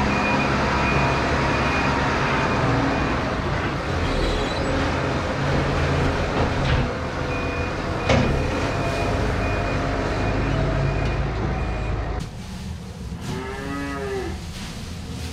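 Farm tractor running inside the barn as its front loader sets a straw bale down, with a sharp clank about eight seconds in; the engine noise drops away about twelve seconds in. Near the end a single moo rises and falls over about a second.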